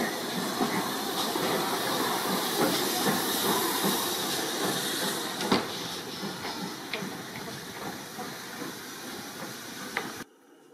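GWR 2-6-2T prairie tank locomotive 4555 letting off a steady loud hiss of steam, with scattered metallic clicks and knocks. The hiss eases slightly after the middle and cuts off suddenly near the end.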